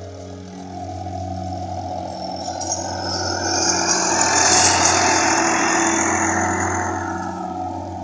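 Diesel farm tractor pulling a tine cultivator through ploughed soil. Its engine grows louder as it passes close by, is loudest about halfway through, then fades.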